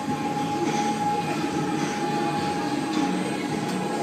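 Spinning carnival thrill ride running, its machinery giving a steady rumble with a steady high whine.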